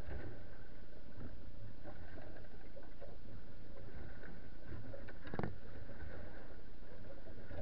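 Steady muffled rumble with scattered soft knocks, and one sharper knock about five and a half seconds in.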